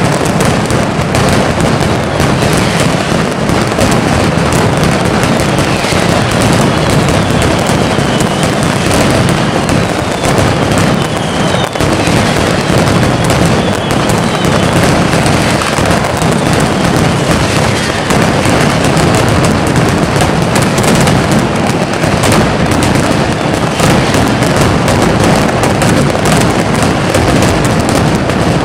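Mascletà firecrackers (masclets) strung on overhead cords exploding in a dense, unbroken rattle of bangs, with faint falling whistles now and then in the first half.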